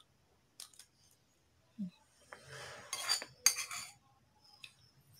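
A metal spoon scraping and clinking against a plate as food is scooped up. There are a few light taps early on, then a scrape and two louder clinks about three seconds in.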